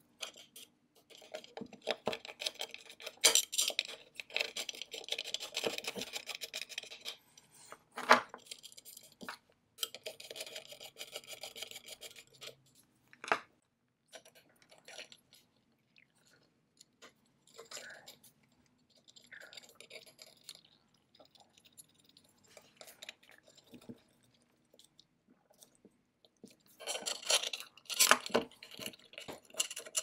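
Small metal engine parts being handled and fitted by hand: scattered clicks, taps and scrapes as breaker points, an ignition coil and a brass part go onto a Maytag engine's cast magneto plate. A few sharp clicks stand out, with quieter stretches between.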